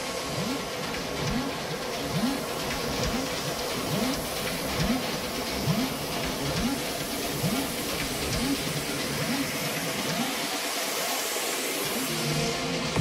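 Psytrance breakdown with the kick drum and bassline dropped out: a hissing noise wash with a short, low, falling synth blip repeating a little more often than once a second.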